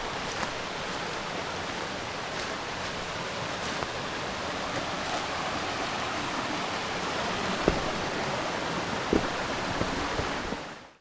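Steady rush of a shallow rocky brook flowing over stones, with two brief knocks late on. The sound fades out just before the end.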